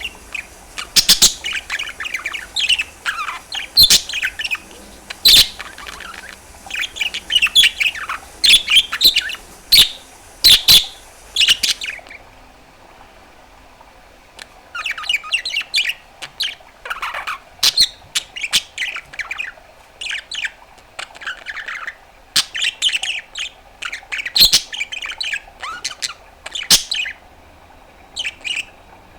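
Budgerigar chattering and warbling in quick chirps and trills, with sharp clicks mixed in. It pauses for about three seconds a little before the middle, then carries on.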